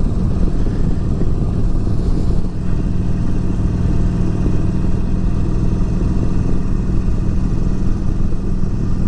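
Harley-Davidson Forty-Eight's 1200 cc air-cooled V-twin running at a steady cruise under wind noise, its pitch holding level.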